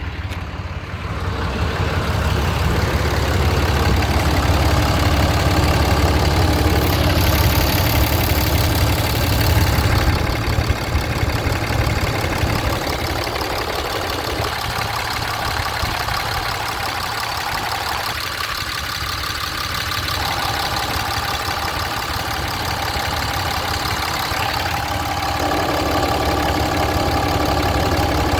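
Dodge service truck's diesel engine idling steadily, its low rumble strongest in the first ten seconds and easing somewhat after about twelve seconds.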